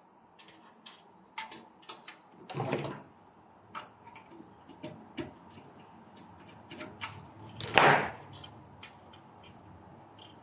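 Light clicks and taps of insulated wires and tools being handled against a metal breaker box and its breakers, with two short scraping rustles, the louder one about eight seconds in.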